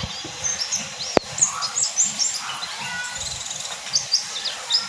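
Pleci (white-eye) songbird twittering: a run of quick, high chirps and short slurred notes. A sharp click sounds about a second in.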